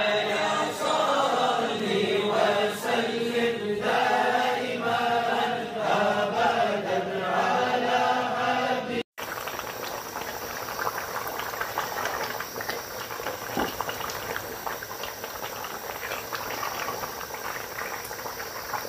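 A voice singing a slow chant for about the first nine seconds, breaking off with a short gap. Then a steady sizzle with faint crackles: pieces of lamb on the bone frying in a large pot while they are stirred.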